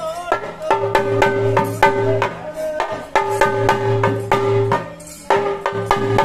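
Traditional ritual music: a drum struck with sticks in a quick rhythm of sharp strokes, under a melody of held notes that come in phrases of about two seconds.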